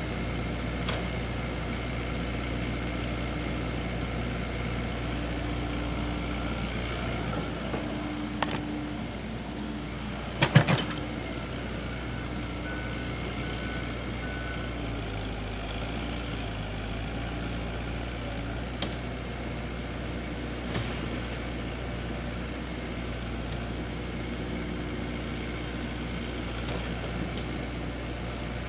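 Excavator engine running steadily, with a sharp clank about eight and a half seconds in and a louder cluster of clanks about ten and a half seconds in.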